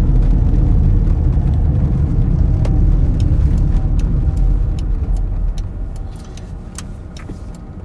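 Low rumble of engine and road noise inside the cabin of a Fiat Fiorino van on the move. It eases off from about five seconds in as the van slows almost to a stop.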